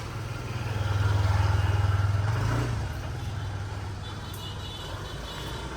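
A motor vehicle's engine running close by with a low hum, growing louder about a second in and easing off again after about two and a half seconds, as if it passes.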